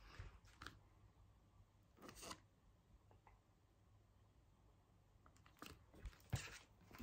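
Near silence, broken by a few faint rustles and soft knocks of a picture book being handled, about two seconds in and again near the end.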